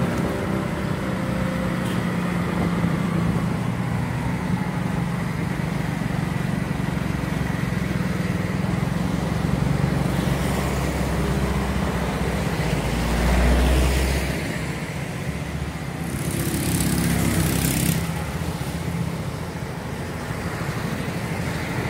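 Street traffic heard from a moving vehicle: a steady low engine-and-road rumble with motorcycles and cars passing. The rumble swells about thirteen seconds in, and a hissing rush comes in around sixteen seconds in.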